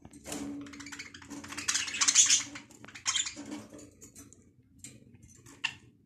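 Caged budgerigars chattering and chirping in quick, scratchy bursts, busiest about two seconds in, with a few short sharp chirps afterwards.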